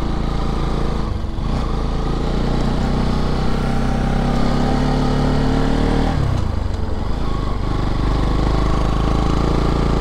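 Motorcycle engine running as the bike is ridden, its pitch rising steadily for several seconds, falling back sharply about six seconds in, then climbing again.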